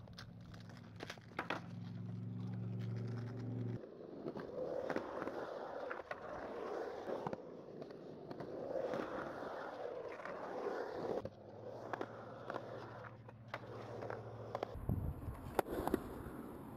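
Small hard wheels rolling and grinding across a concrete skate bowl, with a rough rolling noise that swells and fades, scattered clicks and knocks, and a steady low hum in two stretches.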